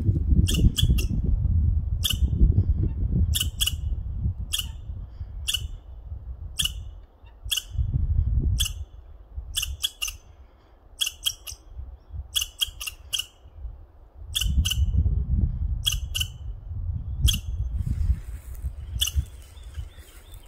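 Red squirrel giving short, sharp scolding chirps, about one and a half a second and sometimes doubled: a territorial alarm call at an intruder. A low rumbling noise on the microphone comes and goes beneath the calls.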